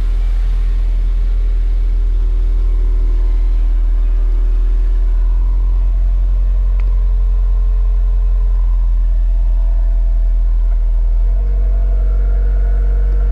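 Exhaust of a 2015 Subaru WRX's turbocharged 2.0-litre flat-four idling steadily, a deep, even drone heard at the quad tailpipes. The sound fills out a little near the end.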